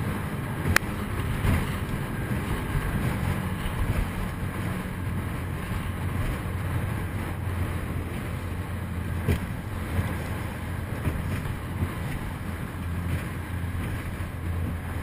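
Speedboat running at speed over choppy water: a steady low engine drone under the rush of wind and water, with a couple of sharp knocks.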